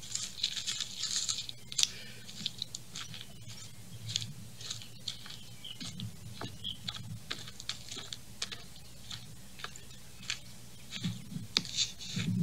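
Footsteps crunching over grass and gravel, heard as irregular small crunches and crackles over a faint low hum.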